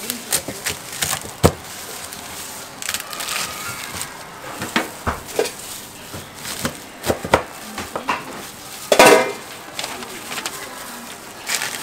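Crisp jianbing (Chinese savoury crepe) being folded and chopped with a cleaver on a steel griddle: irregular sharp crunches and knocks of the blade, the loudest about nine seconds in.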